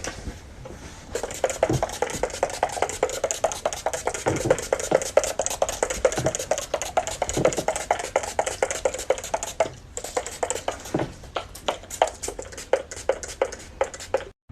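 A fast run of light clicks and taps, several a second, with a brief lull about ten seconds in.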